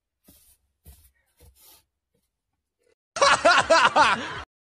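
A person's short burst of laughter, a quick run of pulses about three seconds in, after a few faint soft sounds near the start.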